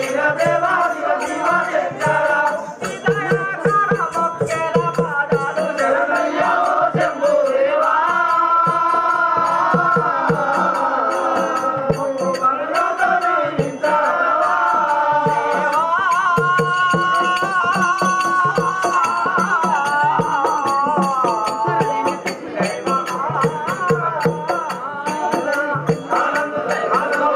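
Devotional chanting with long held notes over musical accompaniment and a constant rattling, jingling percussion.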